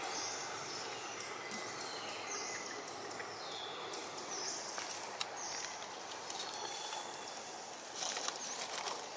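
Steady outdoor background hiss with faint high-pitched calls, and about eight seconds in a run of rustles and crackles as a long-tailed macaque walks over dry leaf litter.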